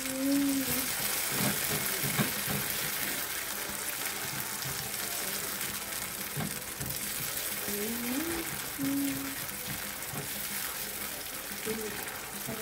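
Carrot, onion and tomato sizzling in oil in a frying pan as they are stirred with a spoon, a steady hiss with small scrapes and knocks of the spoon.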